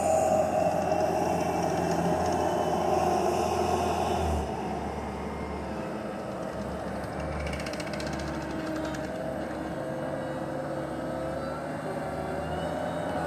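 Skid steer loader engine running steadily, louder for the first four seconds or so, then a little quieter.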